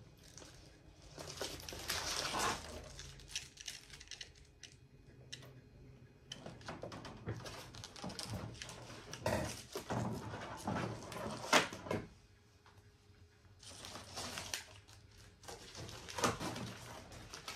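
Rustling and scraping of a self-adhesive Velcro strip being handled, peeled and pressed onto a galvanized sheet-metal plate, in several spells with a few sharp knocks of the strip and sheet on the wooden bench.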